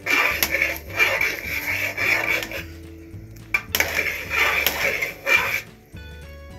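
A metal spoon scraping and rubbing round the bottom and sides of an aluminium pressure-cooker pot while stirring thick, simmering rice kheer. The strokes are uneven, about one a second, with a short lull about three seconds in, and they trail off near the end.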